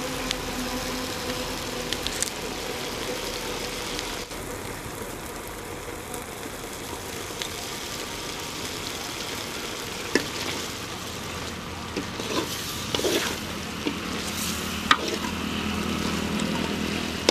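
Dry fish curry sizzling and bubbling in a metal pan over a fire, with a steel ladle stirring and clinking against the pan several times in the second half.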